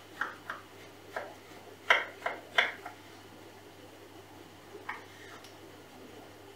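A series of light, sharp clicks and taps in quick succession, loudest about two seconds in, with one more near five seconds, over a faint steady low hum.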